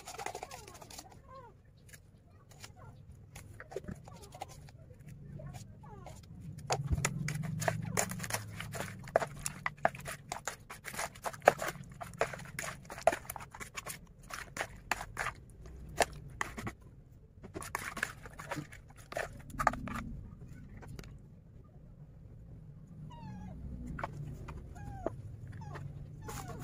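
Metal spoon stirring pieces of catfish through a wet spice paste in a plastic basin: irregular clicks, scrapes and squelches, busiest in the middle.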